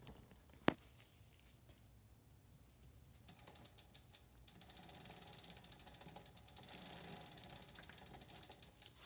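Bicycle rear-hub ratchet clicking in a fast, even run as the cranks are turned backward during chain lubing, starting about three seconds in, with a single click just before. Crickets chirp steadily throughout.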